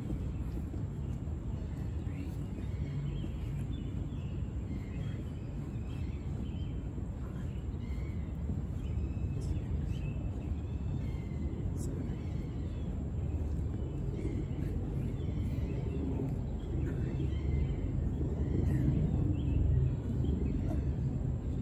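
Outdoor park ambience: a steady low background rumble, with small birds chirping now and then.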